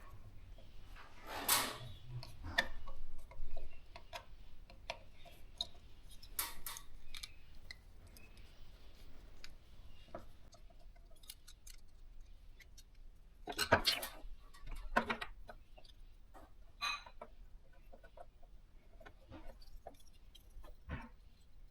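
Scattered clicks and knocks of small hard objects being handled, irregular rather than rhythmic, with louder clatters about a second and a half in and again around the middle.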